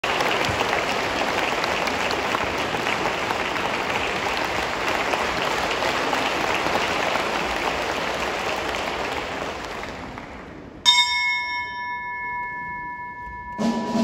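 Concert audience applauding, dying away after about ten seconds. Then a single sudden struck tone rings on at a few steady pitches, and the orchestra comes in just before the end.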